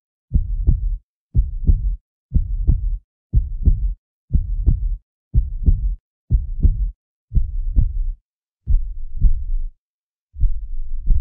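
Heartbeat sound effect: low double thumps (lub-dub) about once a second, about ten in all, with the last two coming more slowly.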